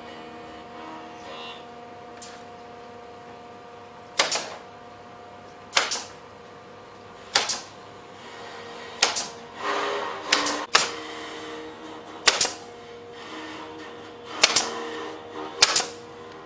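A series of sharp knocks, about nine of them at uneven intervals of a second or two, some coming in quick pairs, over a steady faint hum.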